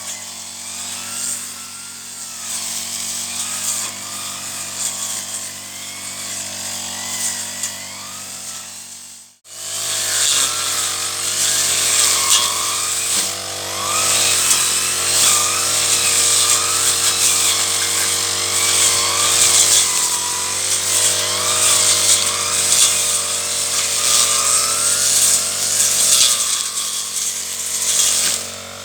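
Petrol brush cutter (grass-cutting machine) running at working speed while cutting weeds, its pitch wavering as it works. The sound breaks off sharply for an instant about a third of the way in, then carries on.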